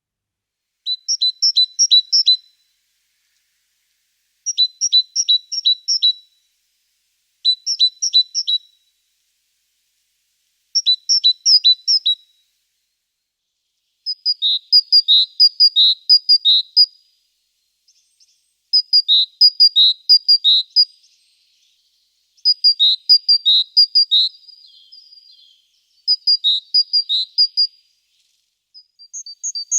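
A small songbird singing repeated phrases, each a quick run of the same two-note figure, one high note and one lower, about every three to four seconds.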